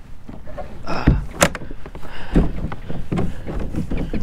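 Plastic kayak hull and rudder knocking and scraping on oyster shell as the rudder is pulled up out of the shell. The sound is a run of irregular clunks and sharp knocks, with a few heavier thumps.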